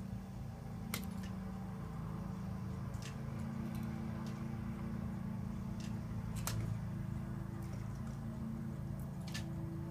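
Plastic wrapping being worked off a cuckoo clock part: a few short, sharp crinkles and clicks spaced a few seconds apart, over a steady low hum.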